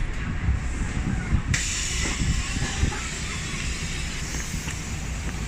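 Bus's compressed-air system hissing: a sudden hiss about a second and a half in that slowly trails off, over the low rumble of the idling bus engine, with a few knocks.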